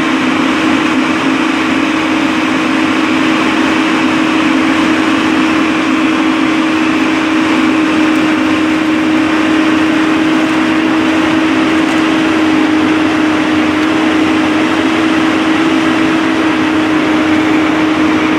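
A large engine running steadily: a constant loud drone with a strong even hum, not changing in pitch.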